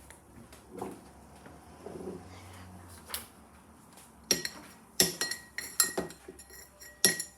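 Cups and a water electrolyzer being handled and set down: faint shuffling at first, then from about four seconds in a quick run of sharp clinks and knocks, some briefly ringing.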